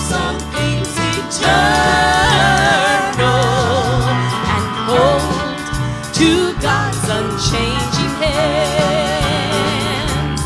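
Live gospel band playing a short instrumental break between verses: steady bass and drums under a wavering lead melody.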